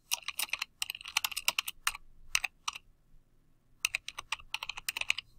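Typing on a computer keyboard: two quick runs of keystrokes with a pause of about a second between them.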